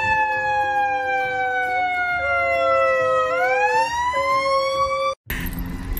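Emergency vehicle siren wailing, its pitch sliding slowly down and then sweeping back up about three seconds in, with a second steadier tone beneath it. It cuts off abruptly about five seconds in.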